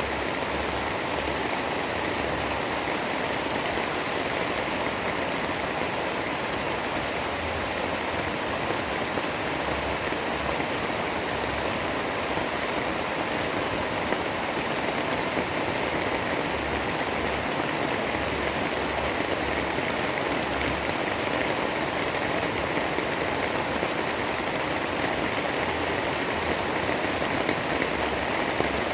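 Steady storm ambience: an even, unbroken rush of rain-like noise, with no thunder or separate drops standing out.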